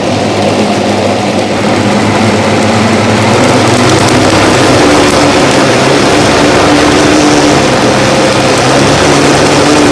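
Countertop blender running steadily, blending pieces of pineapple, watermelon and soursop with yogurt into a smoothie. Its loud motor whir grows a little louder over the first few seconds, then holds steady.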